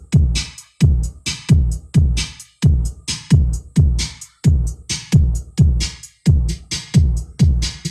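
Electronic dance remix with a heavy, fast kick-drum beat, about two beats a second, each kick dropping in pitch under crisp high percussion, played loud through homemade 15-inch subwoofer boxes for a bass soundcheck.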